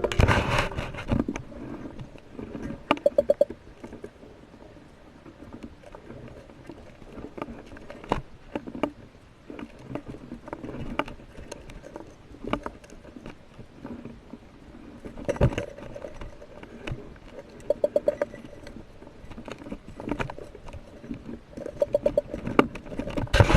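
Underwater sound during spearfishing: scattered sharp clicks and knocks over a faint background hiss, with short rapid buzzing trains of clicks three or four times.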